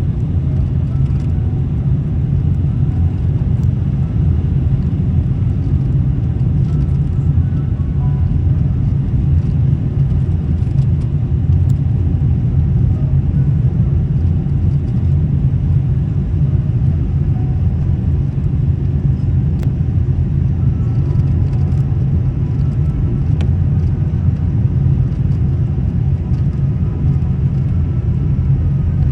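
Airbus A380 airliner noise: a steady low rumble that neither rises nor falls.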